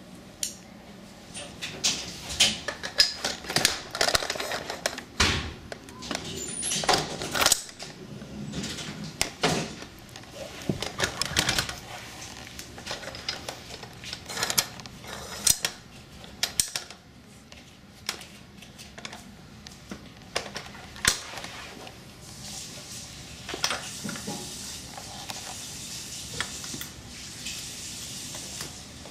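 Irregular clicks, knocks and clatter of hard plastic and metal parts being handled as a boat launching-dolly wheel is fitted onto its metal axle and pinned at the hub. The knocks come thickest in the first half.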